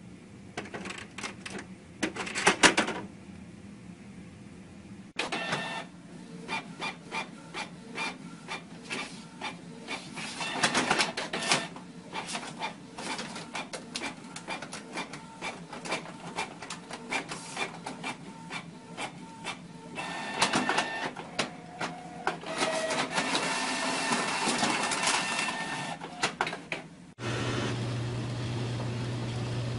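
Inkjet printers running a print job: rapid mechanical clicking from the paper feed and print-head carriage, with a whirring motor whine. The sound changes abruptly about five seconds in, and again near the end, where a steady low hum takes over.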